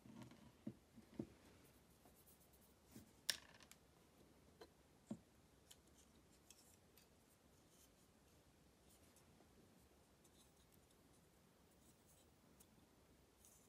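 A handful of small, sharp clicks and taps from plastic model-kit parts being handled and fitted together, the loudest about three seconds in. Near silence for the rest.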